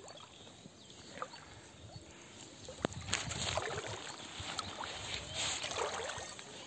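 Water splashing and dripping as a gill net with small fish caught in it is lifted out of a shallow flooded rice paddy and handled, with legs sloshing through the water. Quiet at first, then busier splashing and dripping from about halfway.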